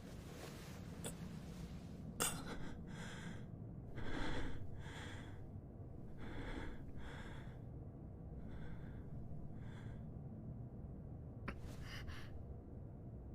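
Heavy, labored breaths and gasps from a character: about ten separate breaths, unevenly spaced, with a sharp click about two seconds in and another near the end.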